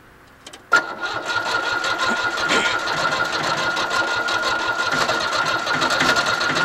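Yanmar YB1200SS mini-excavator's diesel engine cranked over and starting, a sudden start about a second in into a steady rapid clatter with a steady high whine on top. It is hard to start and keep running, which the owner puts down to a blown head gasket.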